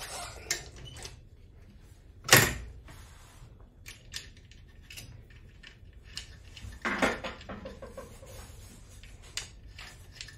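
Clinks and knocks of a wrench and metal parts as an electric scooter's front wheel is refitted to its fork, with one loud sharp clank about two seconds in.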